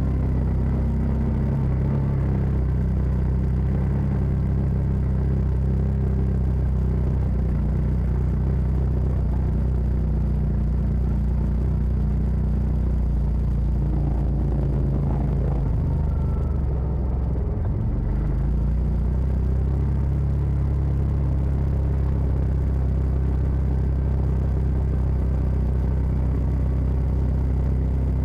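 CF Moto side-by-side's engine running steadily under way on a trail, with a low rumble; the revs drop briefly a little past halfway through, then pick up again.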